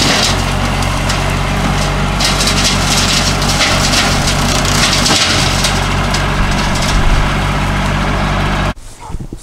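Kubota L2501 compact tractor's three-cylinder diesel running steadily under load while its rear rotary cutter (brush hog) shreds brush, with a constant rush and crackle of sticks being cut over the engine note. The sound cuts off suddenly near the end.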